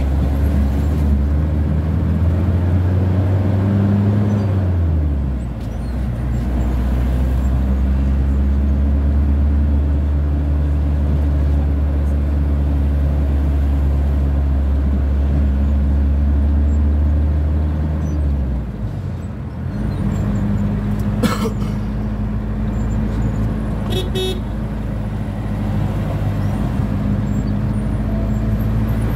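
Road vehicle engine drone, its pitch falling about four seconds in and dropping again around eighteen seconds as the engine changes speed. There are a couple of short horn toots in the latter part.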